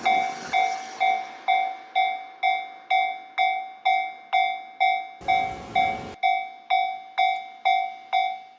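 Japanese railway level crossing warning alarm sounding its repeated "kan-kan" tone, about two ringing strikes a second, each dying away before the next: the signal that a train is approaching and the barriers are coming down. A brief rush of noise breaks in about five seconds in.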